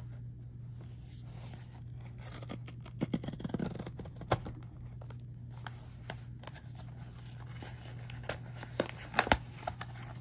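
Hands opening a cardboard blind box: packaging rustling and tearing, with scattered clicks and taps that are sharpest about a third of the way in and near the end.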